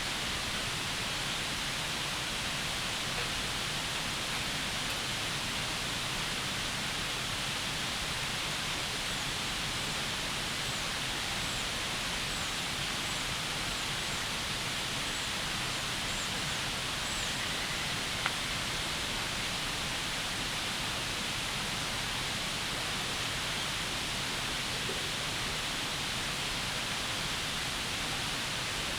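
Steady rushing of a river flowing past the campsite, with faint high bird chirps in the middle stretch and a single sharp click about eighteen seconds in.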